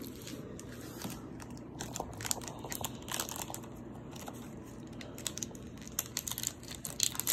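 Foil wrapper of a Pokémon trading card booster pack crinkling and tearing as it is handled and pulled open by hand, in a run of short crackles.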